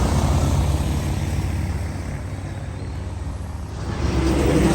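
A motor vehicle's engine running steadily, a low rumble that eases off in the middle and swells again near the end.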